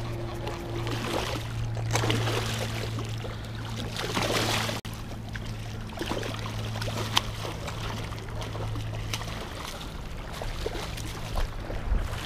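A carp shot with a bowfishing arrow thrashing and splashing in shallow floodwater, loudest about two seconds in and again around four to five seconds in. Under it runs a steady low hum that fades out past the middle.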